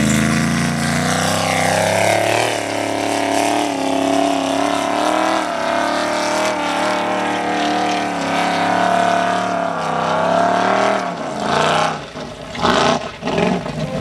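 Formula Offroad buggy's high-horsepower engine at full throttle on a hill climb. The revs rise over the first two seconds and hold high, wavering under load, then fall away about eleven seconds in, followed by short choppy bursts of throttle near the end.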